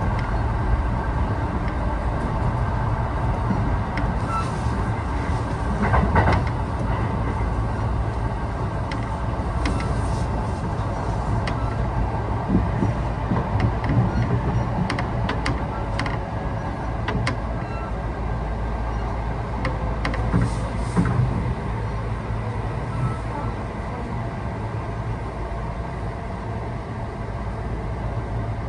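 Running noise of a Kintetsu 1620 series electric train heard inside the passenger car at speed: a steady low rumble of wheels and motors, with occasional sharp clicks and knocks from the wheels over rail joints.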